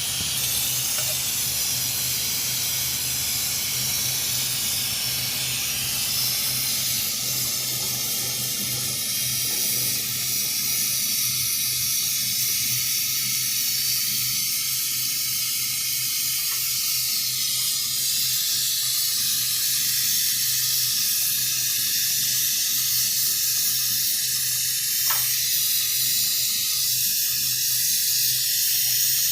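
Steady hiss of gas or air rushing out under pressure, over a steady low hum. From about ten seconds in, the middle of the sound thins out, leaving a thinner, higher hiss.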